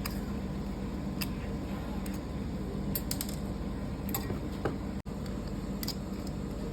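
A few light clicks and ticks, spaced a second or two apart, over a steady low hum.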